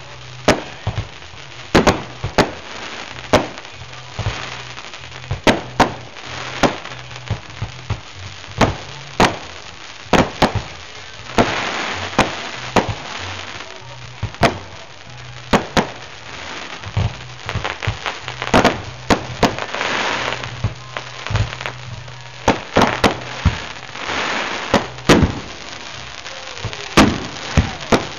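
Aerial fireworks bursting: a rapid, irregular string of sharp bangs, often several a second, with spells of crackling between them.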